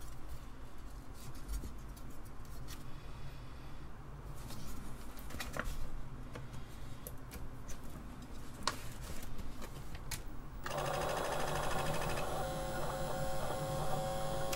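Clicks of a controller card and ribbon cable being handled and seated. About ten seconds in, an Apple Disk II floppy drive's spindle motor starts and runs with a steady, high squeal. It is running flat out because the drive speed control has failed, which the repairer puts down to the speed regulator or its little board.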